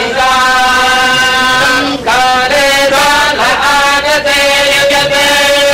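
Vedic chanting: voices reciting in long held notes on a steady pitch, with a few brief breaks and shifts of note.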